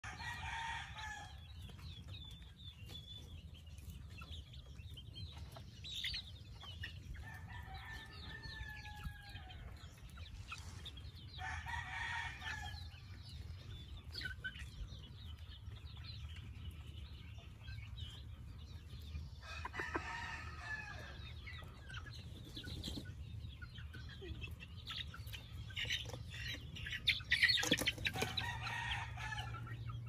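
Flock of young Sweater and Gilmore gamefowl calling: scattered clucks and chirps, with a few longer calls and crows spaced through the clip. A louder burst of wing flapping comes near the end.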